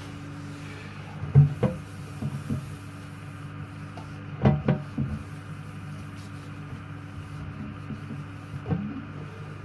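A few hard knocks and rubs from handling parts, over a steady low hum. The loudest knocks come about a second and a half in and again about four and a half seconds in.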